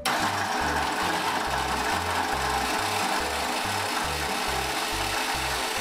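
A Fakir Vienta 1700 W hand blender's motor switches on at once and runs steadily, driving the chopper blade through zucchini in the food-processor bowl.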